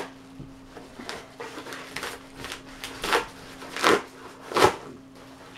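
Padded paper mailer envelope being torn open by hand: a run of short paper rips and crinkles, the three loudest coming close together in the second half.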